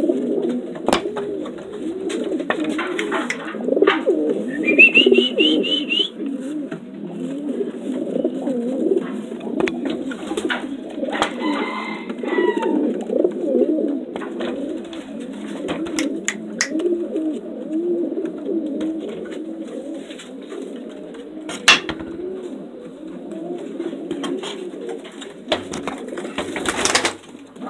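Many homing pigeons cooing at once, a continuous chorus of overlapping low, wavering coos, with occasional sharp knocks.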